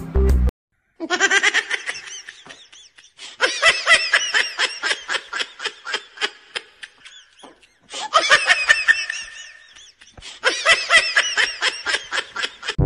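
A person laughing hard in long runs of quick, repeated ha-ha pulses, four runs broken by short pauses. A music track cuts off about half a second in, just before the laughter starts.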